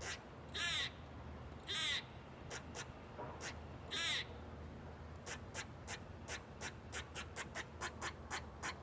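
Squirrel alarm-calling: three longer, rasping, crow-like squawks in the first half, then a fast run of short barking chirps, about three or four a second. Calls like these are a squirrel's warning at a predator, and a cat is suspected.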